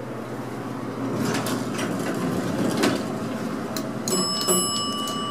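A single elevator chime: a clear, steady electronic ding that starts about four seconds in, just as the floor-1 button is pressed, and fades over about two seconds, its higher tones dying away first. Before it, only low steady noise in the cab.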